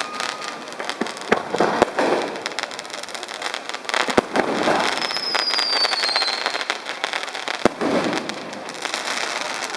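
Aerial fireworks shells bursting with sharp bangs, about four spread through, with crackling between them and a high falling whistle about five seconds in.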